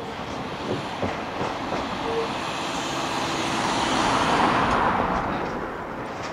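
Freight train of covered hopper wagons running past, its wheels clicking over rail joints at first. The noise swells about four seconds in as the rear wagons pass closest, then begins to fade.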